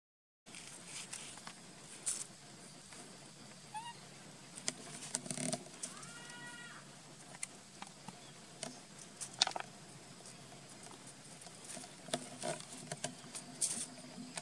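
Baby monkey giving one short, arched, high call about six seconds in, with scattered clicks and rustles of it being handled among the rocks.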